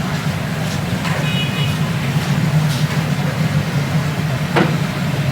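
A steady low drone of machinery or street traffic. A short high beep comes about a second in, and a few sharp clinks follow, one clearly past four seconds.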